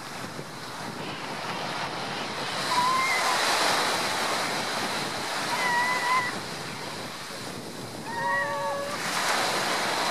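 Choppy sea water washing and splashing, with wind on the microphone. Three short calls at a steady pitch stand out over it, about three, six and eight seconds in.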